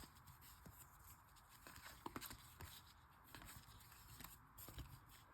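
Near silence with faint, scattered light clicks and ticks of trading cards being handled and flipped through.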